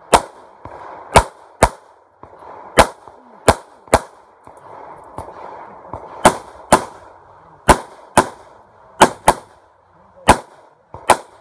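A string of about fourteen handgun shots fired during a practical-pistol course of fire, often in quick pairs under half a second apart, with pauses of a second or two between groups.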